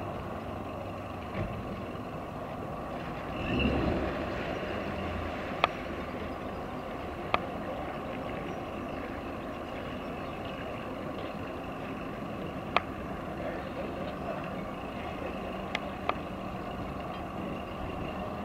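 Outboard motor of a small motorboat running at low speed, a steady mechanical hum that swells briefly about four seconds in. A few sharp clicks stand out over it.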